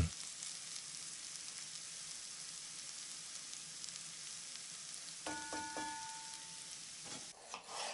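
Chopped red onion, grated carrot and garlic frying in oil on high heat in a deep stone-coated sauté pan, a steady sizzle as a spatula stirs them. About five seconds in, a short ringing tone sounds briefly over the sizzle.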